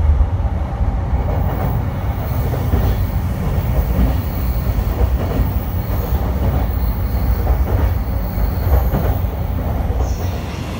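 Tokaido Line electric commuter train running, heard from inside the carriage: a steady low rumble of wheels on rails that eases a little near the end.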